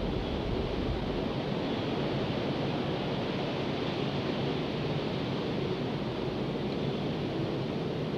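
A steady rushing noise with no distinct events and no pitch, even in level throughout.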